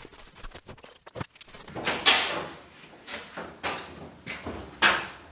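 Footsteps of a person walking while carrying a stack of cardboard boxes, the boxes rustling and knocking with each step, about two strokes a second. A few light clicks and knocks come before the walking starts.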